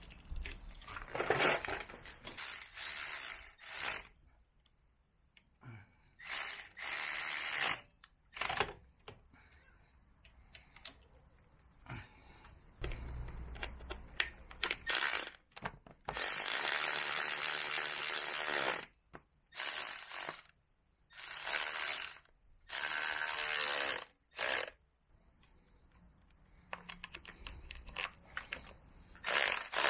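Hand socket ratchet clicking as bolts are run in, in repeated spells of one to three seconds with short pauses between.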